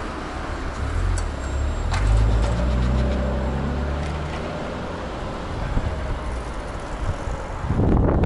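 A motor vehicle's engine passing close by on the road, a low hum that is strongest from about one to five seconds in and then fades. Traffic noise is heard throughout, and loud wind noise on the microphone comes in near the end.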